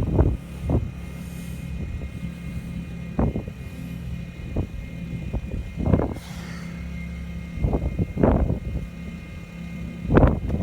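Westinghouse iGen2500 inverter generator running steadily with eco mode off, a low, even hum. Short bursts of wind or knocks on the microphone come now and then.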